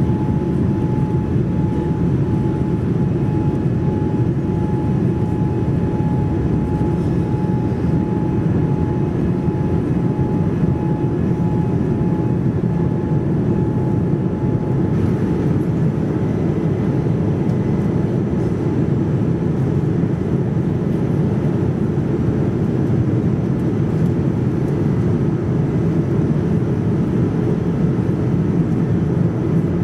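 Steady cabin noise of a Boeing 787-9 heard from a window seat in descent: an even rush of airflow and engine hum, with the wing's speedbrake spoilers raised. A faint high steady tone sounds over it and stops about halfway through.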